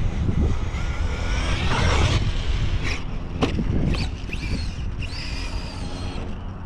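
Traxxas Sledge RC monster truck's electric motor whining as the truck speeds across sand, its pitch rising and falling with the throttle, over a low rumble of wind on the microphone.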